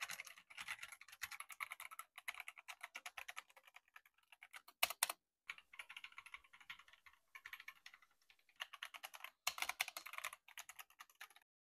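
Typing on a Zifriend ZA63 60% mechanical keyboard: rapid key clacks in several runs with brief pauses, and a louder burst of strokes about five seconds in. The typing stops shortly before the end.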